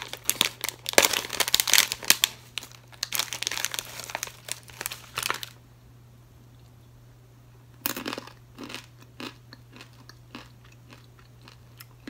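Close-up crunching and chewing of crunchy coated peanuts, dense for the first five seconds or so. After a short pause it goes on as sparser, slower crunches.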